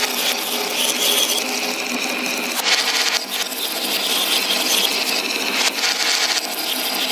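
Dozens of glass marbles rolling and clattering down a wooden wave-shaped slope track, clicking against each other and the wood in a dense, steady rattle.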